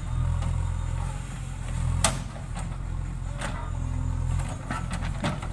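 JCB 3DX backhoe loader's diesel engine running steadily, with a sharp metallic clank about two seconds in and a few fainter knocks.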